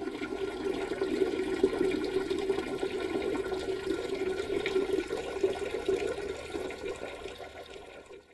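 Toilet flushing: a long rush of water that holds steady, then slowly dies away near the end.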